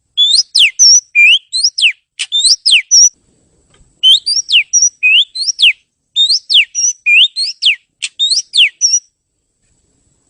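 Oriental magpie-robin (kacer) singing: clear whistled notes that sweep sharply up and down, repeated in near-identical phrases about a second long with brief pauses. The song stops about nine seconds in.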